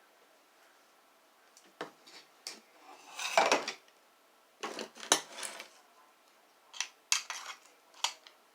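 Metal vacuum wand tubes and parts clinking and rattling as they are handled, in a string of short clatters. The longest and loudest comes about three seconds in.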